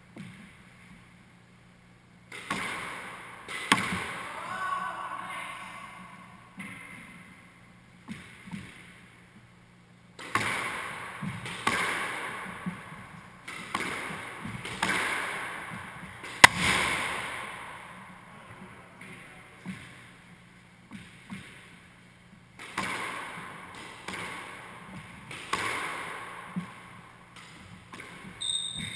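Squash rallies in an enclosed court: the ball smacks off rackets and walls about once every second or so, and each hit rings on in a hard echo. There are short pauses between rallies.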